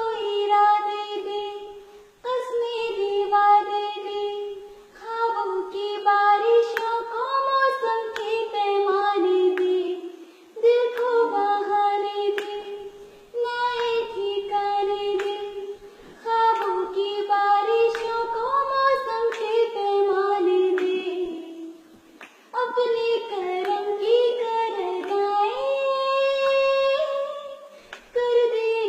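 A high voice singing unaccompanied, in phrases of two to three seconds with short breaks for breath between them.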